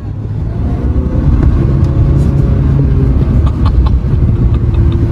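Car engine running with a loud, steady low rumble, with scattered light ticks over it.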